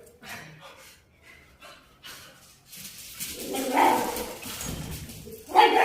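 Dogs playing: a few faint clicks at first, then barking and yapping from about three seconds in, with one loud bark near the end.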